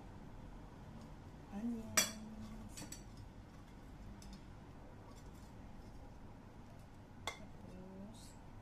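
Cutlery and ceramic dishes clinking as food is handled in a bowl: one sharp clink about two seconds in, another near seven seconds, and faint tapping between.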